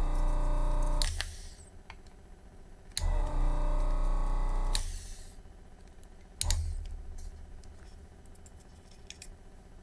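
Yihua 948 desoldering station's vacuum pump humming in bursts as the gun's trigger is pressed, sucking molten solder out of circuit-board holes. There are two bursts of one to two seconds, each starting with a click, and a brief one about six and a half seconds in.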